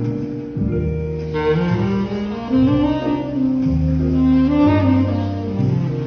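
Selmer R54 tenor saxophone with a Vandoren TL4 mouthpiece playing a ballad melody in long held notes, over a backing track with a bass line. The saxophone line comes in strongly about a second and a half in.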